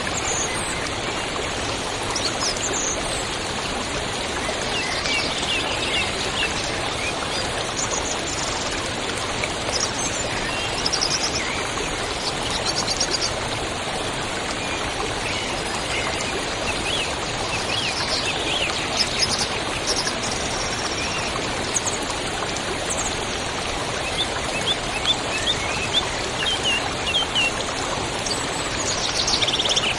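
Steady rush of a waterfall, with small birds chirping in quick runs of notes on and off above it.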